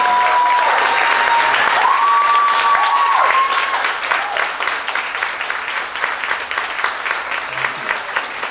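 Audience applauding in a hall, with a few long high calls over the clapping in the first few seconds; the applause thins out and fades in the second half.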